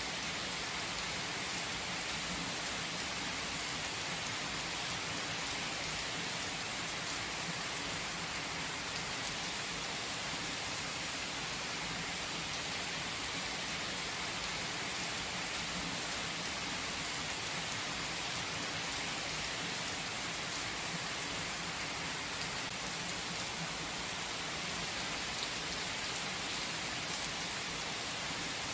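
Steady rain falling, an even hiss with no pauses or changes.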